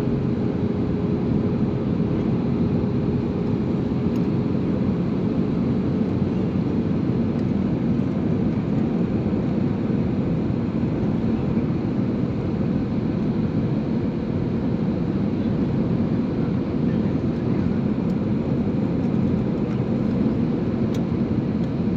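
Air Arabia airliner's engines and airflow making a steady, even rumble, with a faint steady whine that fades out about six seconds in.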